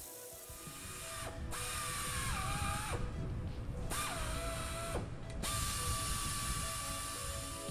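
Pneumatic tapping arm tapping holes in an aluminium wheel hub: air hiss with a motor whine that drops in pitch as the tap loads up, cut off twice and started again, the last run steady.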